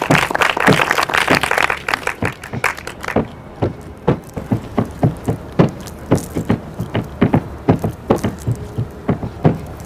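Kathak footwork: bare feet stamping on a mat in sharp, irregular strikes, a few a second, with a denser, faster patter in the first three seconds.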